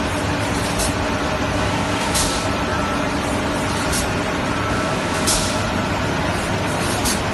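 Pulp egg tray production line running: a steady, loud machine hum. Five short hisses of air break in about every second and a half.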